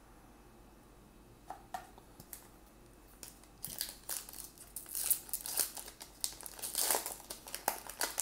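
Foil wrapper of a Topps Fire baseball card pack crinkling and tearing as it is pulled open by hand. After a couple of soft clicks, the crinkling starts about three and a half seconds in and grows busier toward the end.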